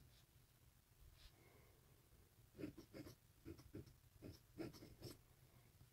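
Faint scratching of a pointed metal dip-pen nib on paper as letters are written: a run of short strokes that starts about halfway in.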